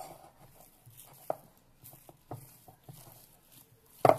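Hands kneading oiled pizza dough in a glass bowl: irregular soft thumps as the fist presses and pushes the dough against the bowl, the loudest near the end.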